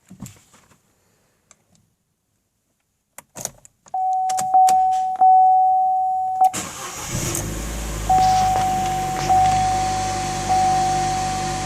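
A few clicks, then a car's warning chime dinging in a steady single tone; about six and a half seconds in, the 2012 Chevrolet Cruze Eco's 1.4 L turbo four-cylinder, fitted with a K&N cold air intake, starts and settles into a steady idle while the chime keeps dinging a little more than once a second.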